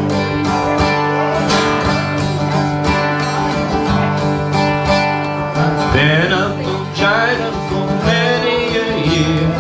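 Two acoustic guitars strumming a lively folk song in a steady rhythm, an instrumental stretch between sung lines. A singing voice comes in briefly about six seconds in and again near the end.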